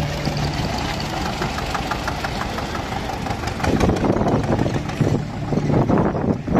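Zetor 25A tractor's two-cylinder diesel engine running at low speed as it drives past, with a regular beat of firing strokes. It gets louder a little past halfway through.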